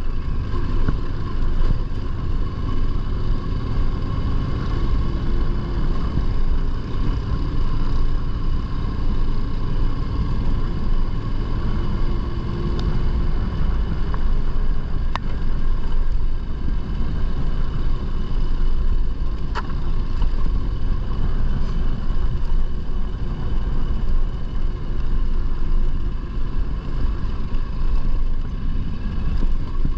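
Yamaha Ténéré 700 adventure motorcycle's parallel-twin engine running steadily under way on a dirt track, with tyre and wind rush. A couple of sharp ticks cut through, about halfway and two-thirds of the way in.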